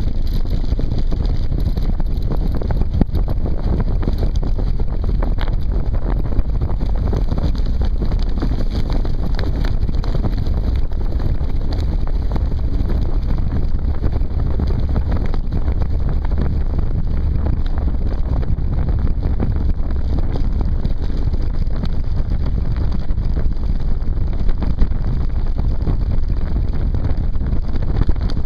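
Strong wind buffeting the microphone of an onboard camera on a moving land yacht: a steady, loud low rumble with small scattered rattles.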